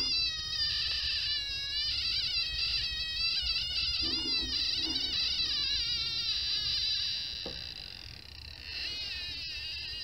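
TriField TF2 EMF meter's audible tone, an electronic warble that wavers up and down in pitch as the radio-frequency reading spikes near the smart meter's transmitter. It is strongest for the first four seconds or so, fades about eight seconds in, then settles to a steadier high tone.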